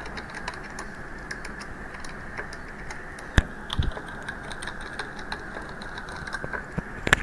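Typing on a computer keyboard: a run of quick key clicks, with a few louder keystrokes about three and a half seconds in and again near the end, over a steady faint hiss.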